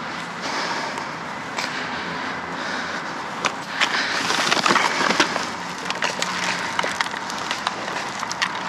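Items being handled and rummaged through in a pile of curbside trash: rustling, with scattered clicks and knocks that come thickest around the middle.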